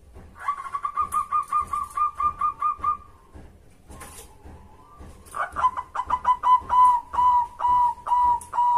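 Zebra dove (perkutut) cooing: a quick run of about a dozen short, even notes, then after a pause of a couple of seconds a second run, pitched slightly lower, that starts fast and slows toward the end.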